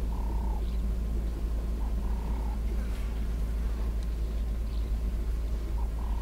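Frogs calling at a waterhole: short, evenly repeated calls, each about half a second long, every second or two, over a steady low rumble.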